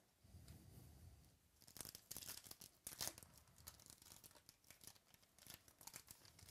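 Faint tearing and crinkling of a trading-card pack wrapper being ripped open and handled, a run of quick crackles starting about a second and a half in.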